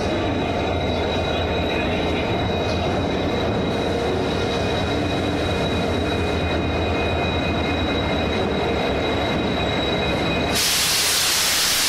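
Passenger train coaches rolling past along the platform, wheels running on the rails with a steady rumble and a thin, high-pitched squeal. A loud hiss cuts in about ten and a half seconds in and lasts just over a second.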